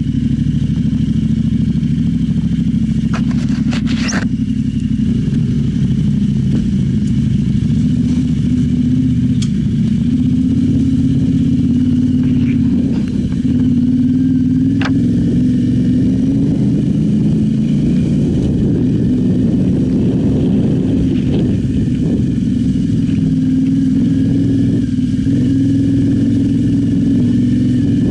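Yamaha Ténéré 700's parallel-twin engine running steadily as the bike rides off road, with a few sharp clicks and knocks, a cluster about four seconds in and one about fifteen seconds in.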